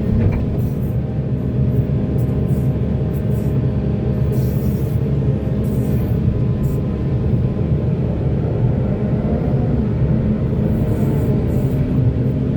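Heavy diesel engine of mining machinery running steadily under load, with a slight rise and fall in pitch about two thirds of the way through.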